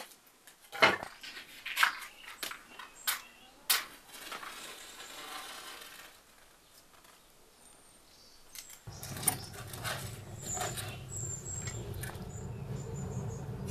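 Sticks of firewood knocking against each other as they are stacked into a clay tandoor pit. From about nine seconds in, the fire in the tandoor burns with a steady low rush and crackling.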